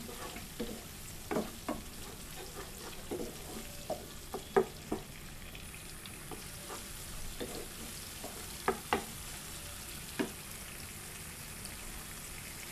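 Onions and ginger-garlic paste sizzling in ghee and oil in a nonstick pan while being stirred, with irregular scrapes and taps of the utensil against the pan; the sharpest taps come about four and a half seconds in and again around nine and ten seconds.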